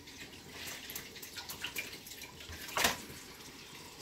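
Water dripping and lightly splashing as rice is washed in water, with scattered small clicks and one short, louder sound about three seconds in.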